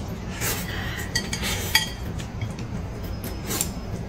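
Chopsticks clicking against a plate, with noodles slurped in short hissy pulls in between.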